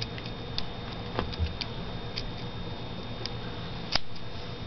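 The small scissors of a Leatherman Surge multitool snipping at a self-adhesive bandage wrap: a run of light, irregular clicks, with one sharper click about four seconds in.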